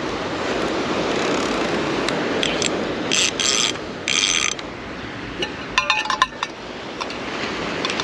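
Fishing reel ratcheting in three short buzzing runs, then a quick flurry of clicks, over steady surf and wind noise.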